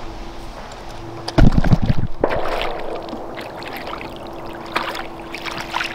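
Small hooked crappie being reeled to the boat, splashing at the surface, with scattered sharp clicks and a loud thump about a second and a half in. A steady hum from an electric trolling motor runs underneath.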